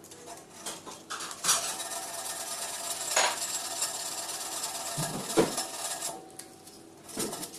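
A cymbal's cracked edge being hand-sanded with fine 320-grit sandpaper: a steady gritty rubbing with a few light metallic clinks, smoothing the cut-out so the crack stops spreading.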